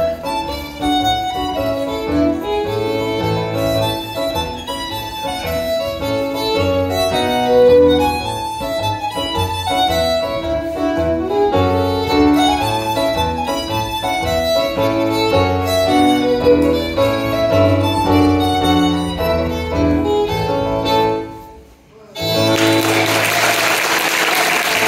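Scottish country dance music led by fiddle over a steady bass beat, ending about 22 seconds in. Audience applause follows and runs on.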